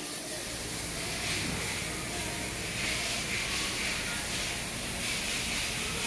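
Steady background hiss with no distinct event.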